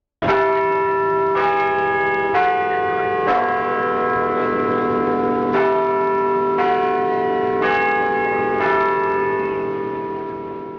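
Bells ringing: a run of about nine strikes roughly one a second at changing pitches, each tone ringing on under the next, starting suddenly out of silence and fading near the end.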